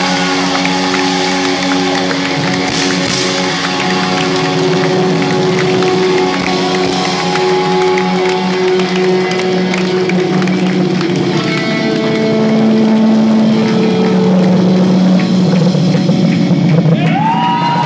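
Live rock band holding long sustained chords at the close of a song, the chord changing about two-thirds of the way through, with the audience clapping and shouting over the music. A whoop rises near the end.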